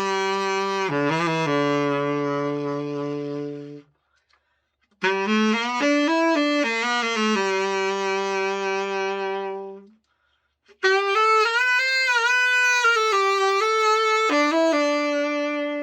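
Selmer Mark VII tenor saxophone being played after a full overhaul, in three short melodic phrases with brief pauses between them; the first phrase settles on low held notes, the last sits higher.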